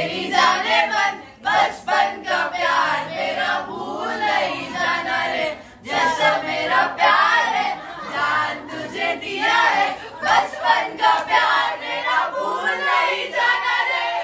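A group of young men and women singing and cheering together, with some hand clapping.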